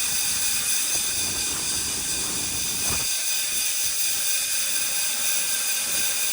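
Tractor-driven grain vac running steadily: a loud, even hiss of rushing air with several high, whining tones over it.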